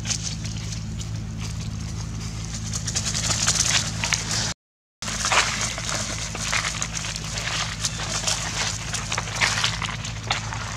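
Dry leaf litter crackling and rustling under monkeys' footsteps as they move about, over a steady low hum. The sound cuts out for about half a second midway.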